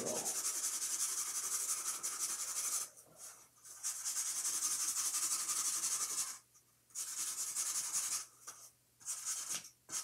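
A marker scribbling and rubbing on a cardboard toilet paper roll as it is coloured in, in spells of scratchy strokes broken by short pauses.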